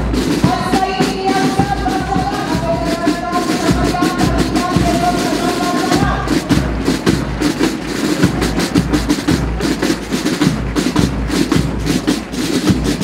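Parade march music with a steady drum beat. A sustained melody line sounds over the drums for the first half, then drops out about six seconds in, leaving the drums alone.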